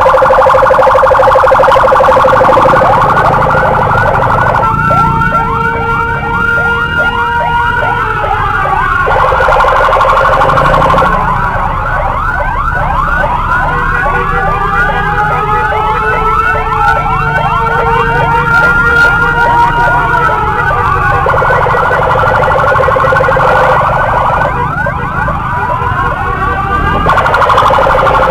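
Electronic emergency siren on an escort motorcycle, switching every few seconds between a rapid warble and slower rising-and-falling wails, a fire-engine-style siren tone. At times a second siren's glides overlap it, over a low rumble.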